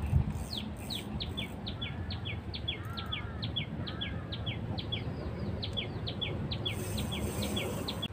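A bird calling over and over: short falling whistles, about three or four a second, over a steady low rumble of wind. There is a single thump right at the start.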